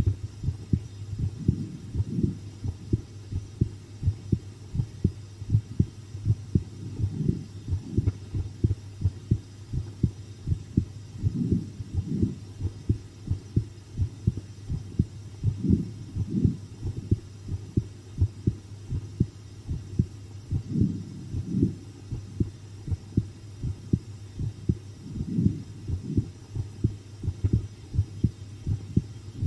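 A person's heartbeat recorded close up: continuous, regular lub-dub thumps over a steady low hum. The uploader thinks the pace is quicker than usual from the fright of watching scary videos.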